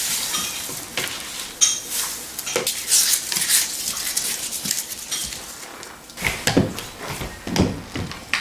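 A broom sweeping a hardwood floor and paper scraps being gathered up by hand: scratchy rustling with a few light clinks and knocks. From about two-thirds of the way in, heavier bumps come as quad roller skate wheels shift on the floorboards.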